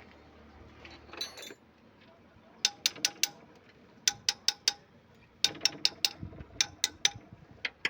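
Ratchet wrench clicking in short runs of three or four sharp clicks, with pauses between, as bolts on an engine head are worked loose.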